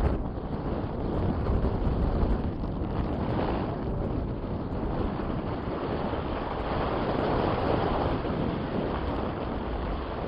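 Strong wind buffeting the microphone: a continuous rushing noise, heaviest in the low end, that swells and eases with the gusts.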